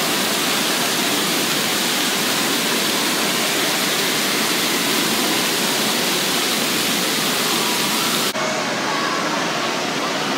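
Steady rushing wash of water in a water park, an even hiss with no break. About eight seconds in it turns abruptly duller, losing its highest hiss.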